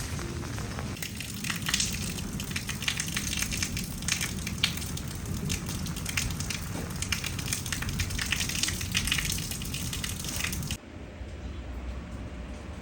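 Heavy rain falling, a dense crackling patter of drops, which cuts off abruptly about eleven seconds in to a quieter background.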